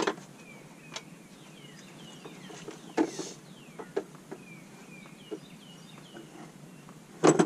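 Small birds chirping in the background, repeated short calls falling in pitch. Over them come scattered clicks and rustles as nitrile gloves are pulled on, with one louder snap near the end.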